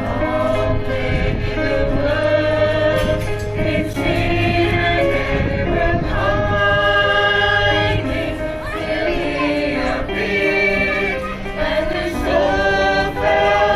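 A group of carol singers singing a Christmas carol in parts, with long held notes.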